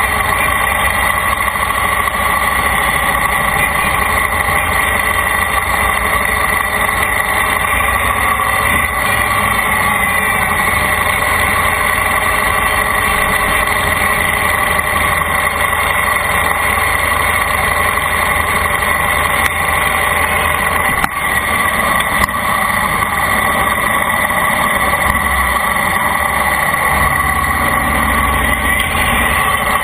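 Vehicle engine running with a steady, constant hum during a ride.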